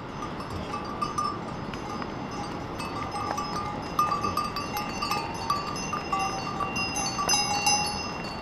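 Bells on a train of pack mules ringing irregularly as the animals walk past close by, with light knocks of hooves on the stony path.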